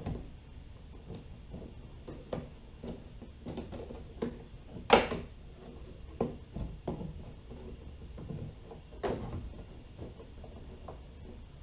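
Irregular knocks, clunks and scrapes of a battery and a homemade bracket being test-fitted into a routed hole in a plastic kayak hull, with one sharp knock about five seconds in and another about nine seconds in.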